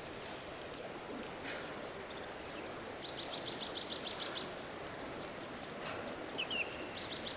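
Outdoor ambience with a bird calling: a rapid trill of about ten high notes a second, heard twice, with a short falling chirp between, over a steady high hiss.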